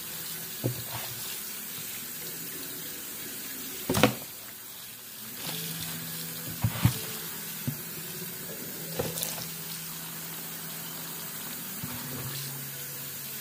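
Kitchen faucet running steadily into a stainless-steel sink as raw angora goat fiber is rinsed in a plastic bin, with a few knocks from the bin being handled, the loudest about four seconds in.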